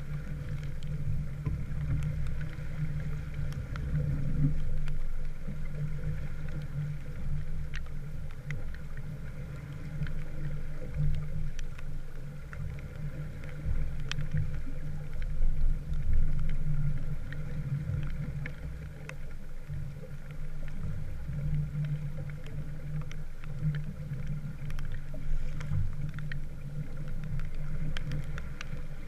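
A small wooden sailboat under way: a steady rush of water and wind noise, with scattered light ticks.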